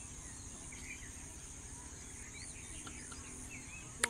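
Outdoor ambience of a steady high-pitched insect chorus, like crickets, with a few short bird chirps over a low rumble. A single sharp click sounds near the end.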